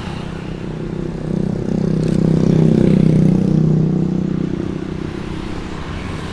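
A motor vehicle driving past close by. Its engine hum swells to a peak about halfway through, then fades away.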